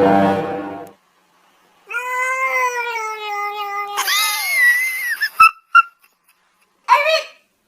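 Cat meowing: a long drawn-out meow sliding slightly down in pitch, straight into a higher, wavering yowl, then a few short chirps and a brief meow near the end. A lower drawn-out cry fades out in the first second.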